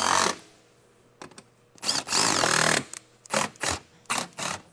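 Cordless drill-driver spinning the top 10 mm bolts of a Ford truck's grille: the end of one run at the start, then a run of about a second with the motor's pitch gliding, then three or four short trigger pulls. The bolts are being run snug and backed off so the grille can still be adjusted.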